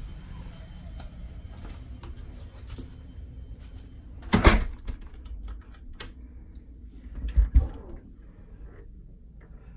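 Wooden door being handled and shut: a loud sharp clatter about four and a half seconds in, then heavier thumps about three seconds later, over a steady low rumble.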